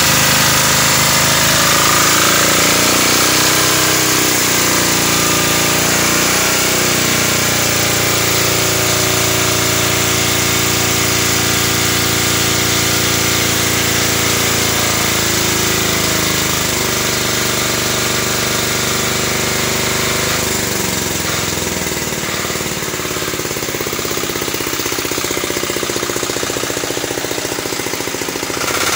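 Portable diesel generator engine running with a hard, rapid clatter after its injection pump has been bled of air. Its speed shifts up and down a couple of times, around a few seconds in and again past the middle.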